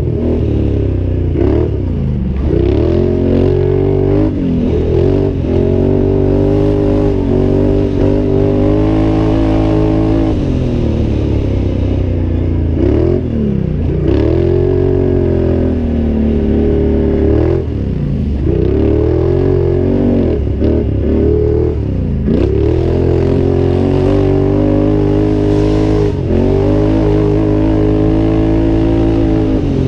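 Can-Am Outlander 800 ATV's V-twin engine racing under hard throttle. Its pitch climbs as it accelerates and falls away every few seconds as the throttle is let off and opened again.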